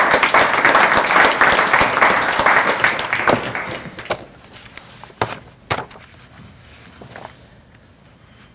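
Audience applauding, dying away after three to four seconds, followed by a few scattered knocks and taps.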